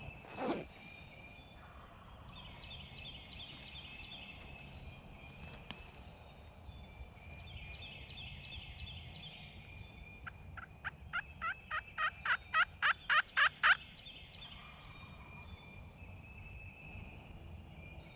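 Wild turkey yelping: a run of about a dozen yelps, growing louder over three to four seconds, after a short low falling note near the start. Songbirds chirp faintly in the background.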